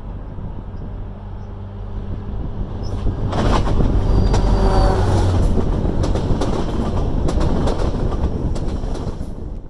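Via Rail F40PH diesel locomotive and LRC passenger coaches passing directly underneath. The locomotive's engine hum builds and gets loud about three seconds in as it goes under, followed by the steady rush and clatter of the coaches' wheels on the rails.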